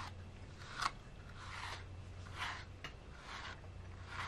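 Wire-bristle slicker brush stroking through a cat's short fur, each stroke a short rasping swish, about seven strokes in a row.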